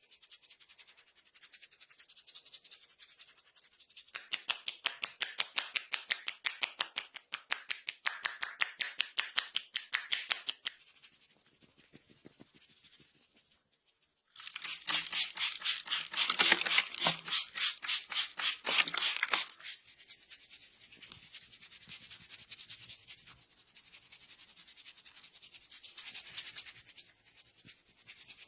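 Hands rubbing and scrubbing quickly over a person's head and hair during a head massage, in fast, even, rhythmic strokes. The strokes come in two louder runs, one starting about four seconds in and a stronger one near the middle, with softer rubbing between.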